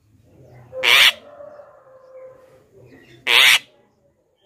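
Javan myna giving two loud, harsh calls, each under half a second: one about a second in, the other about three and a half seconds in.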